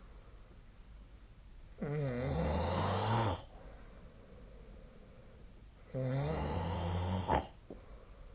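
A person snoring in sleep: two long, low buzzing snores about four seconds apart, each lasting about a second and a half.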